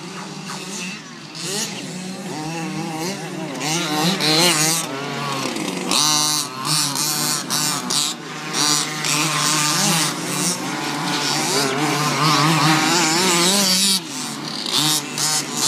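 Radio-controlled car's motor whining and buzzing, its pitch rising and falling over and over as the throttle is worked.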